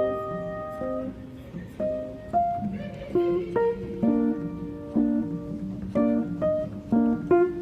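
Background music on plucked guitar: a gentle melody of single picked notes, each ringing and fading.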